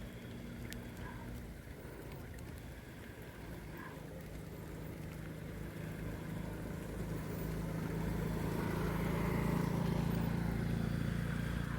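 An engine running at a steady pitch, growing louder as it approaches and loudest about ten seconds in.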